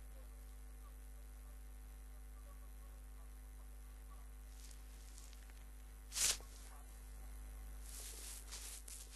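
Steady low electrical mains hum. About six seconds in there is one sharp, brief noisy burst, and fainter noisy bursts come near the end.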